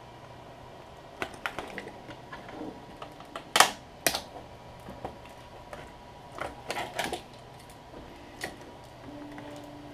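Irregular clicks and taps of small plastic and metal parts being handled as a laptop battery pack is taken apart, the loudest a pair of sharp knocks about three and a half and four seconds in.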